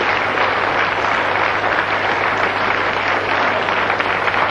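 Audience applauding steadily, a dense even clatter of many hands, over a low steady hum.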